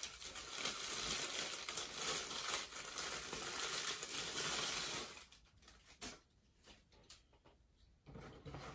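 Thin plastic packaging bag crinkling as a camera is worked out of it, loud and continuous for about five seconds. Then quieter handling with a few light ticks.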